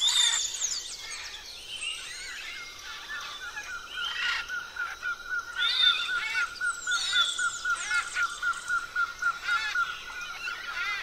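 Chorus of many birds calling and singing together, with high falling whistles and assorted chirps. From a few seconds in, one bird repeats a quick chirp on one pitch about five times a second.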